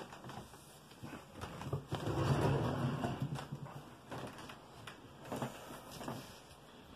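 Movement sounds of a person standing up from a wooden chair: shuffling, scraping and a few knocks, loudest about two seconds in, then a few lighter knocks.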